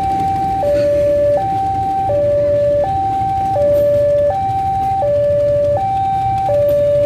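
Railway level-crossing warning alarm sounding a two-tone electronic signal, switching between a higher and a lower note about every 0.7 seconds. Underneath, a passenger train's coaches rumble past on the track.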